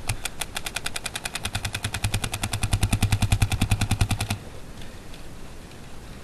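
Planet Eclipse Geo 2.1 paintball marker firing a rapid string of shots, about ten a second for roughly four seconds, then stopping suddenly. A low hum runs under the later shots.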